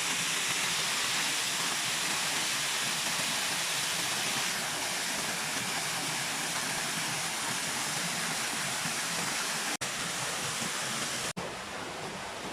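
Brudslöjan waterfall rushing in a steady, even roar of falling water. The sound cuts out for an instant twice near the end.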